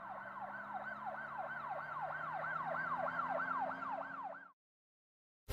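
Siren warbling quickly up and down, about three sweeps a second, over a low steady hum. It grows a little louder, then stops about four and a half seconds in.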